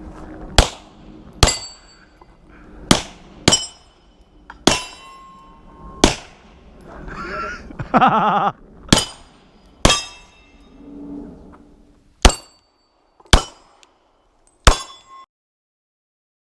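A string of about eleven sharp gunshots at uneven intervals, each followed by a brief metallic ring. A short shout or voice comes in partway through.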